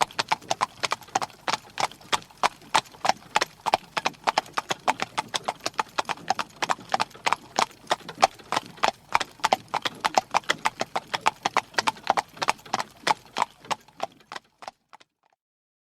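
Hooves of horses pulling a carriage: a quick, steady clip-clop that grows fainter and stops near the end.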